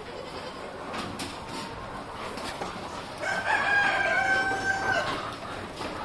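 One long farm-animal call, held at a fairly steady pitch for nearly two seconds, starting about three seconds in.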